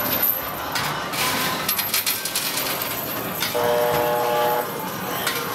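Arcade din of clinking, clattering game tokens, with a steady electronic tone from a game lasting about a second, starting about three and a half seconds in.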